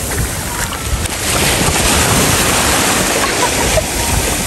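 Small sea waves washing and breaking at the shoreline in a steady rush, with wind on the microphone.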